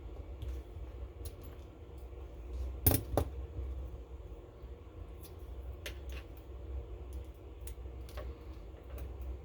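Small metal clicks and taps of a tool working at the retaining ring on a lock's core, scattered through, with a sharp double click about three seconds in the loudest.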